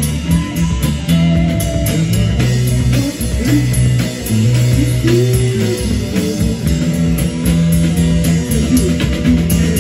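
Live rock band playing an instrumental passage: electric guitars over held bass-guitar notes and a drum kit, a guitar bending its notes up and down.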